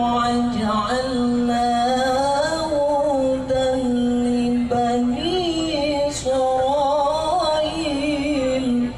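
A man's solo voice in Islamic devotional chanting. He holds long, sustained notes and decorates them with melismatic turns and slides, rising higher about five seconds in. The phrase ends just before the close.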